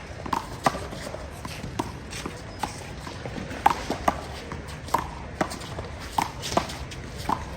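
Irregular sharp smacks of a small rubber handball being struck by hand and rebounding off the wall during a one-wall handball rally, with running footsteps on the court.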